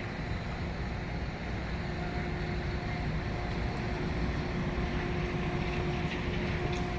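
Steady low outdoor rumble with a constant mid-pitched hum running through it, the background drone of a busy street beside a demolition site.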